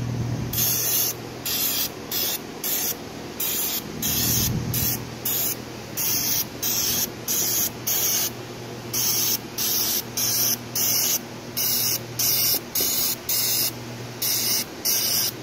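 Aerosol cleaner can spraying solvent onto cylinder-head valve seats in many short hissing bursts, one or two a second. This is the pre-cleaning stage of a dye penetrant crack check.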